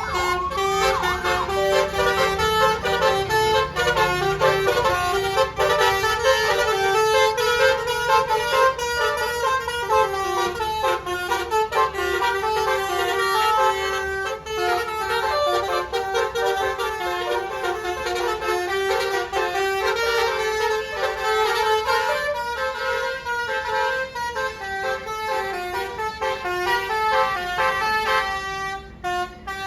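Bus basuri telolet horn playing a fast melody of stepped notes, with a short siren-like glide in pitch at the start.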